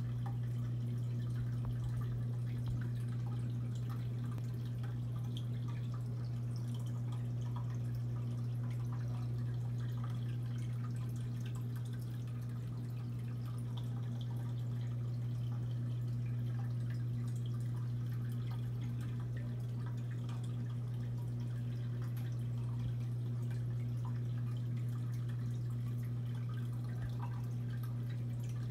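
Aquarium pump humming steadily, with faint scattered drips and trickling of water in the tank.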